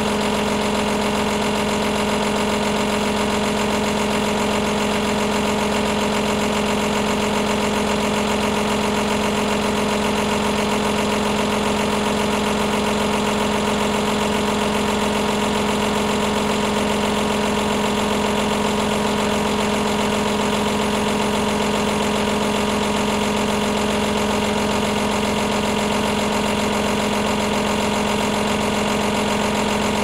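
Washing machine running with a steady, unchanging motor hum: a low drone with higher tones over it.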